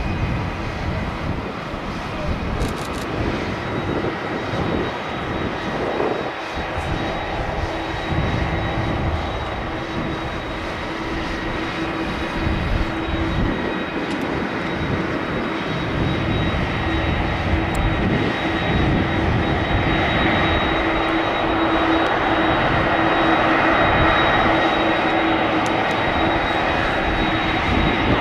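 A McDonnell Douglas MD-11 freighter's three jet engines running at taxi power: a steady whine with a low rumble underneath, growing gradually louder toward the end.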